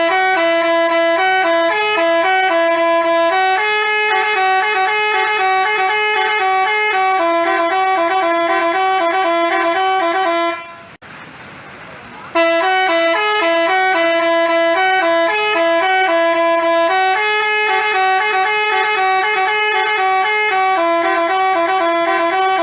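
Basuri telolet bus horn playing a multi-note melody, stopping about ten and a half seconds in and, after a short pause, starting the same tune again.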